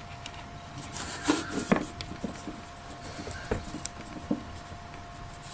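Scattered light clicks and taps of small parts being handled on a workbench, with a faint steady tone underneath.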